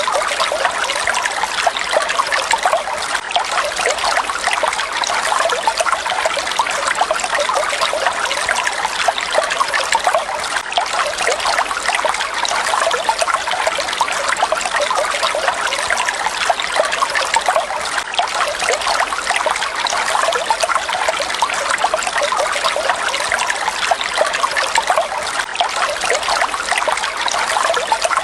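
Water falling and splashing in a steady, even rush, unchanging throughout.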